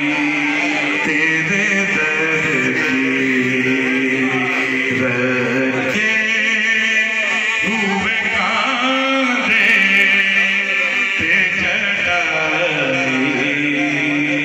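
Male voices singing a naat into a microphone: a slow devotional chant with long, wavering held notes.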